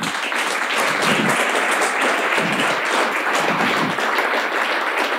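Audience applauding: many hands clapping in a dense, steady wash that starts suddenly.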